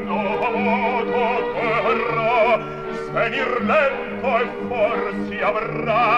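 Operatic baritone singing with orchestra, holding sustained phrases with a wide vibrato over the orchestra's steady accompaniment.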